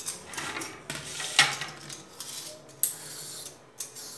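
Vegetable peeler scraping the skin off a white radish (mooli) in several irregular strokes, the loudest about a second and a half in.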